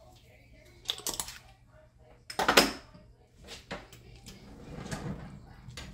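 Spice jars and cooking utensils handled at the stove while seasoning a pot: scattered clicks and taps, with a louder brief rattle about two and a half seconds in and another at the very end.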